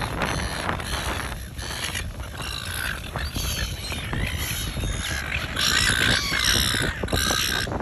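Silver gulls calling, several short calls that bunch together in the last couple of seconds, over wind rumbling on the microphone.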